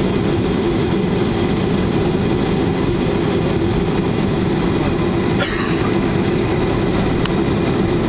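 Steady cabin noise inside a Boeing 737-300 taxiing after landing: the engines' hum at taxi power mixed with the low rumble of the aircraft rolling along the taxiway. A brief higher rustle comes about five and a half seconds in.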